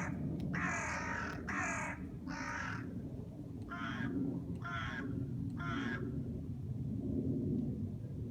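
A crow cawing: a run of about seven harsh caws in the first six seconds, the last few a little weaker, over a steady low rumble.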